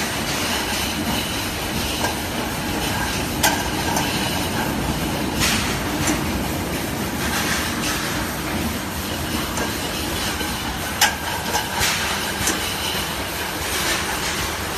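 Automatic six-head paint filling line running, with its rotary can table and conveyor moving empty tin cans, a steady mechanical clatter. A few sharp clicks stand out over it.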